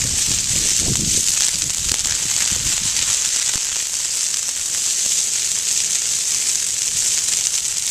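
Grass and brush fire crackling and hissing steadily as a prescribed-burn flame front moves through dry grass and brush.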